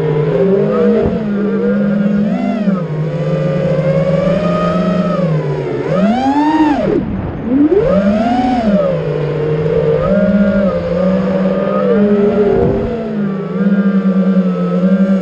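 FPV quadcopter's motors and propellers buzzing in flight, several close pitches wavering against each other. The pitch surges up about six seconds in, drops away, and surges again about two seconds later as the throttle is punched, then settles back to a steady buzz.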